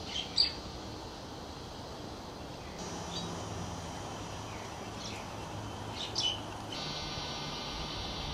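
Small birds chirping over a steady outdoor background hum: a few sharp chirps right at the start, fainter ones in the middle and a couple more about six seconds in.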